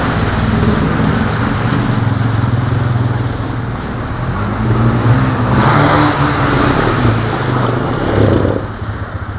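Honda Recon ATV's single-cylinder engine running under load as the quad drives through a muddy, water-filled channel, with water splashing. Near the end the engine eases off and the level drops as it comes to a stop.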